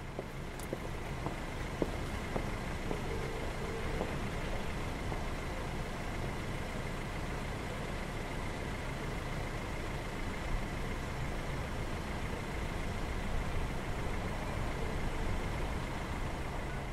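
Steady town-street background noise: an even low rumble of engine and traffic sound with a faint, steady high whine, and a few small ticks in the first couple of seconds.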